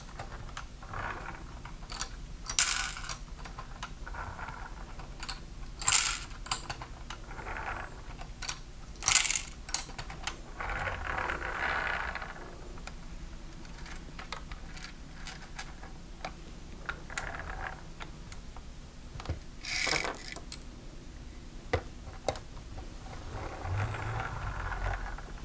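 Plastic clicks, clacks and rattles from a LEGO garbage truck model as its gears and side-loader arms are worked and its bins are picked up. Near the end comes a longer rattle as a load of small round LEGO pieces spills out onto the table.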